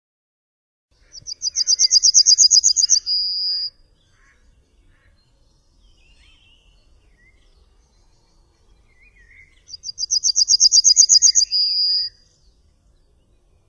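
Yellowhammer singing twice. Each song is a fast run of short, high repeated notes that ends in one longer drawn-out note. Faint chirps from other birds come between the two songs.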